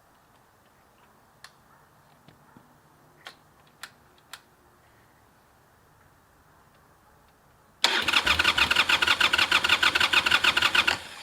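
Harley-Davidson Sportster 883's air-cooled V-twin being started through new shotgun exhaust pipes. After a few faint clicks, the engine bursts into loud, rapid, evenly spaced pulses about eight seconds in, which run for about three seconds and then fade away.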